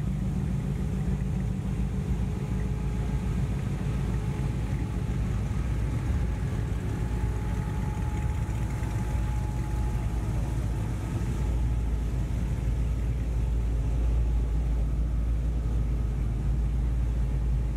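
Engines and exhausts of classic Chevrolet trucks rumbling at low speed as they drive slowly past one after another. The deep rumble is steady and grows stronger in the second half.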